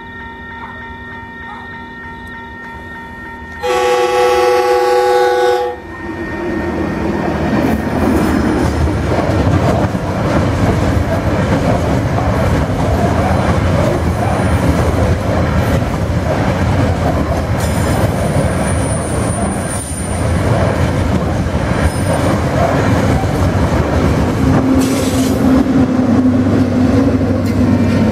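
Level crossing alarm bells ringing steadily, then a train horn blast of about two seconds from the lead locomotive about four seconds in. Cement hopper wagons then roll past with clickety-clack of wheels on the rails and a few brief high wheel squeals, and near the end the trailing locomotive's diesel engine passes with a steady low drone.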